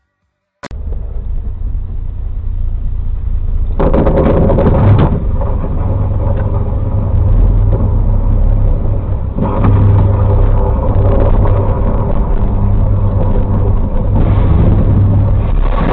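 Loud, deep vehicle rumble on a dashcam recording, starting abruptly after a moment of silence and swelling louder and rougher three times.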